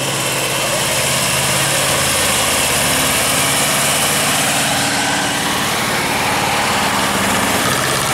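Vintage tractor engine running steadily at low revs as the tractor drives slowly past.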